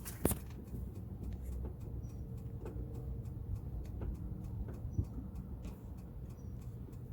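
Honda Odyssey 3.5-litre V6 idling steadily, with faint light ticks through it and a sharper click just after the start.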